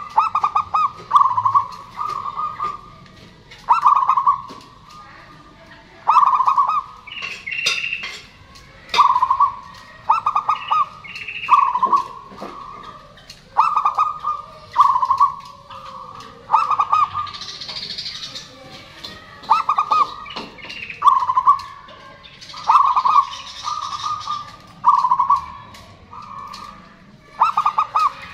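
Zebra dove (perkutut) singing: short phrases of rapid, rolling coos, repeated over and over with brief gaps between them.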